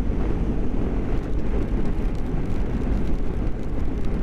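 BMW GS motorcycle riding at a steady speed on wet roads: an even, unbroken low rumble of engine and road noise.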